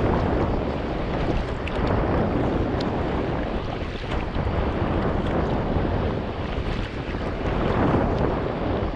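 Sea water sloshing and splashing around a carbon-Kevlar sea kayak under way, with wind buffeting the microphone. Scattered small ticks of drips and splashes run through it.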